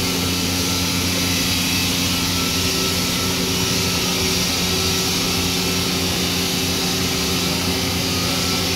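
Crane engine running steadily during a heavy lift: a constant, unchanging drone with a low hum and a strong hiss over it.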